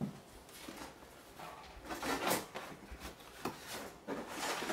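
Rummaging in a cardboard shipping box: rustling of the box and its packing as parts are pulled out. There is a light knock at the start and a click about three and a half seconds in.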